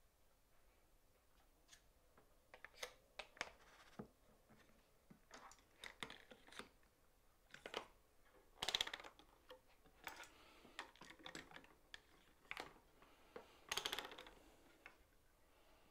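Faint clicks and knocks of a board being set in a dovetail jig and clamps being handled, with two louder clatters of about half a second each, about nine and fourteen seconds in, as each lever clamp goes on and is tightened.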